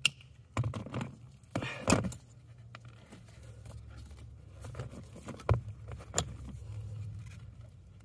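Wire cutters snip through a wire with a sharp click, the last wire of the burned blower motor connector being cut off. Then small parts and tools are handled: rustling and rattling with a couple more sharp clicks as butt connectors are fitted onto the wire ends.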